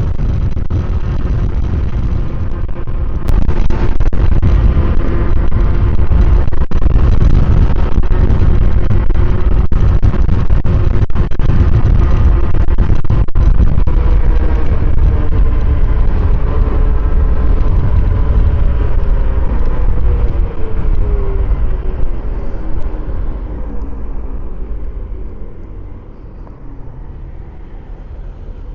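Wind and road rumble from a 72-volt Yume Predator electric scooter being ridden, loud and steady, with a faint whine that slowly falls in pitch. The noise gets louder about three seconds in and drops off near the end.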